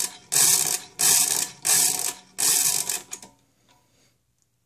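1958 DIMM pinwheel mechanical calculator being cranked for repeated addition: about four full turns of the hand crank in quick succession, each a loud clatter of gears and ratchets. The cranking stops about three seconds in.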